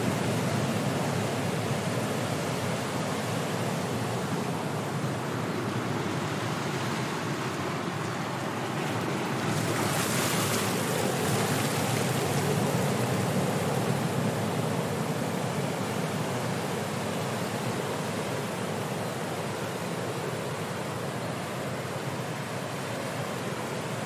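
Ocean surf rushing steadily, with a bigger wave breaking about ten seconds in.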